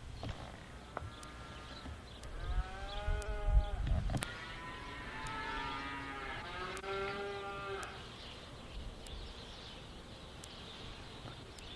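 Cattle mooing: two long drawn-out moos, the first starting about two seconds in and the second following right after and fading out about eight seconds in, over a low rumble on the microphone.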